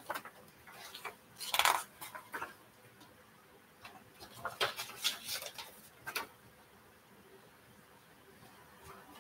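Sheets of paper being handled and leafed through: scattered rustles and light clicks, busiest about one and a half seconds in and again around the middle.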